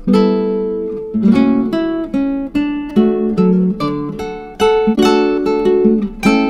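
Background music: a plucked acoustic guitar tune, its notes struck several times a second, each ringing and fading.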